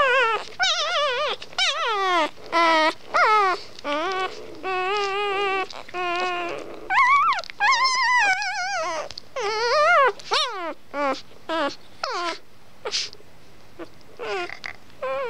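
Young Labrador puppy whining in a long run of high calls that slide up and down in pitch, some held with a wavering warble, like singing. The calls turn shorter and quieter in the last few seconds.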